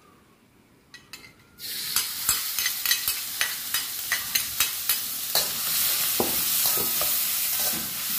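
Blended garlic hitting hot oil in a metal wok: a loud sizzle starts suddenly about a second and a half in and keeps going, with a ladle and spatula scraping and tapping against the bowl and wok as it is stirred.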